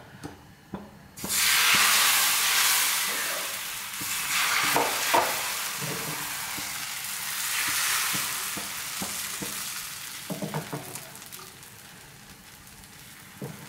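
Thin rice-flour neer dosa batter sizzling as it is poured onto a hot nonstick tawa. The loud hiss starts suddenly about a second in and slowly dies away as the batter sets, with a few light knocks along the way. The strong sizzle shows the tawa is hot enough for the batter to spread lacy and full of holes.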